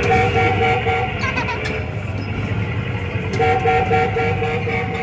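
Coin-operated kiddie ride's electronic horn sound effect tooting: one held toot at the start, then a run of quick toots about four a second, about three and a half seconds in, over arcade ride and machine noise.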